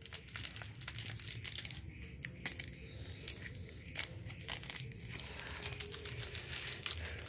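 Small plastic instant-noodle seasoning sachets being torn open and crinkled as they are squeezed out, with soft rustles and scattered small clicks.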